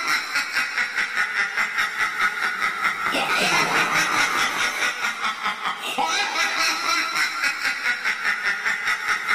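A spooky cackling-laugh sound effect: a rapid string of 'ha-ha-ha' pulses that repeats as a loop every three seconds or so.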